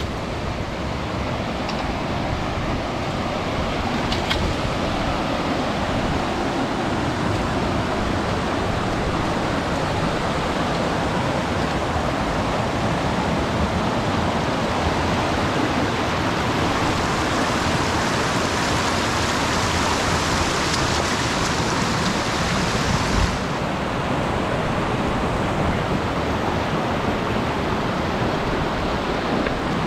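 Steady rush of river water flowing over rocks. It grows brighter and hissier for a few seconds past the middle, then drops back suddenly with a small knock.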